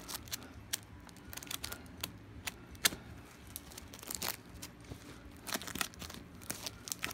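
Clear plastic sleeves on stacked prints crinkling and rustling as they are handled, in irregular sharp crackles.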